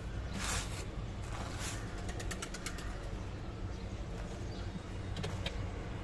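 A hand scraping and sweeping through dry, gravelly sand, feeling for buried quail eggs: gritty rustles with a quick run of small pebble clicks about two seconds in and a few more near the end. A steady low hum runs underneath.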